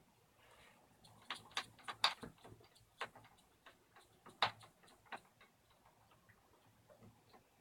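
A Phillips screwdriver working the screws out of a door lock by hand: a run of irregular sharp metal clicks and ticks, two of them louder, about two seconds in and near the middle.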